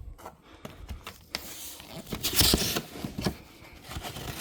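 Handling noise: irregular rustling and scraping with light knocks and clicks, loudest a couple of seconds in.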